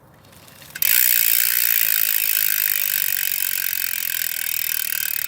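DT Swiss 240S rear hub with a 54-tooth star-ratchet freehub, giving a fast, even, high-pitched buzz of clicks as it freewheels. It starts about a second in.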